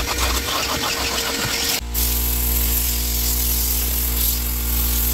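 Carpet-cleaning tools working over a car's floor carpet: a Tornado-style compressed-air cleaning gun and a vacuum. First comes a hissing rush of air with a fast, even rattle. About two seconds in this changes abruptly to a steady motor hum under loud hissing air.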